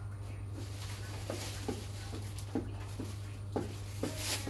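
A litter of puppies making short, soft noises over a steady low hum, about two or three a second, with a brief rustle near the end.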